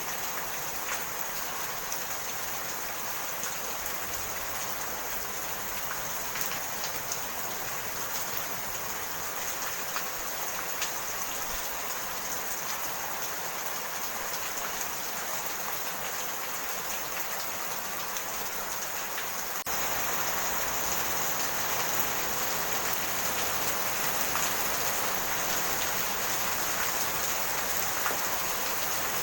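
Steady rain falling, an even hiss with scattered drops ticking through it; it grows a little louder about twenty seconds in.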